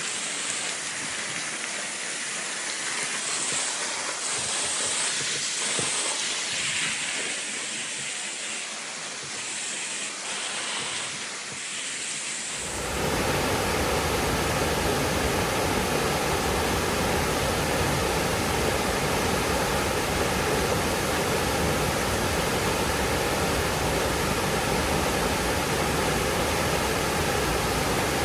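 Waterfall rushing water: a thin, hissing rush at first, then about halfway in an abrupt change to a louder, fuller rush of falling water that holds steady.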